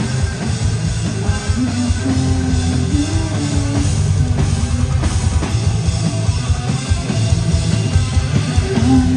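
Live heavy rock band playing: distorted electric guitar over a full drum kit, loud and continuous.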